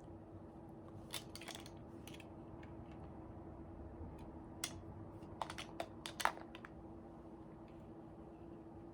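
Irregular light clicks and taps in small clusters, about a second in and again around five to six seconds in, over a steady low hum.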